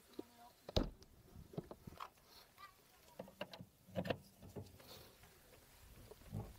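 A dozen or so faint, scattered clicks and light knocks at irregular intervals, the strongest about a second in and again around the middle.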